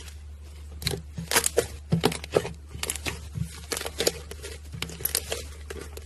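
Slime being squeezed and stretched by hand, giving a dense, irregular run of sharp clicking and popping crackles over a steady low hum.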